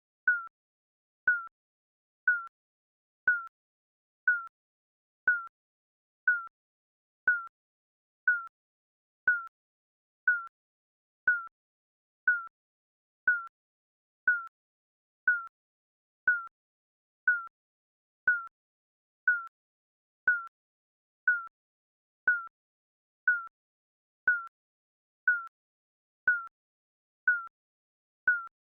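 Digital countdown timer beeping: a short, high electronic beep once a second, each the same pitch, marking off the seconds.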